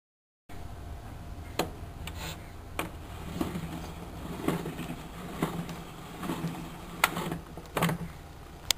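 Reproduction record player being handled around its turntable and red vinyl record: irregular sharp clicks and knocks, about nine of them, over a steady low hum.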